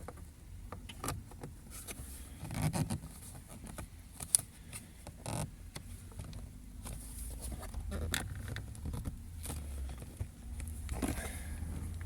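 Lada Vesta exterior door handle being pushed back into its mounting in the door, with plastic clicks, knocks and scraping; one sharp click about four seconds in. The handle goes in tightly, its clips and guide padded with strips of Bitoplast anti-squeak sealant.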